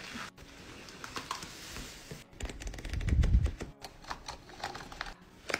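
Close-up stationery handling: light clicks and paper rustle as a planner's cover and pages are moved. After about two seconds comes a low thump, then a quick run of dry clicks as a tape runner is pressed and rolled across kraft paper.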